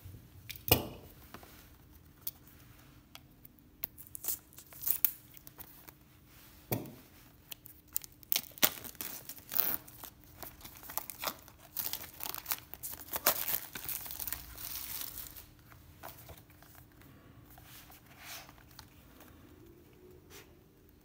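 Clear plastic shrink-wrap being torn and crumpled off a cardboard product box: a run of crinkles and sharp rips that is busiest in the middle and fainter near the end.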